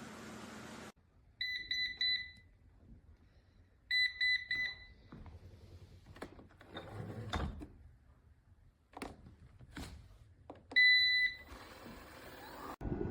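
Electronic beeps from the eufy 11S Max robot vacuum: two quick runs of short high beeps a couple of seconds apart, a few knocks in between, and then one longer single beep.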